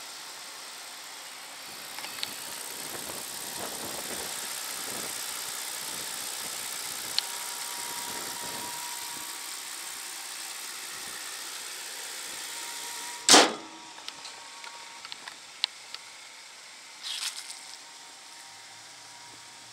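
A steady hiss, then a loud single bang about two-thirds of the way through as the Rolls-Royce Silver Seraph's bonnet is shut, followed by a few light clicks.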